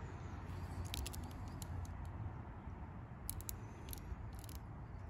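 Faint handling noises: a few light clicks and crinkles as a new spin-on oil filter in clear plastic wrap is turned over in the hand, over a low steady rumble.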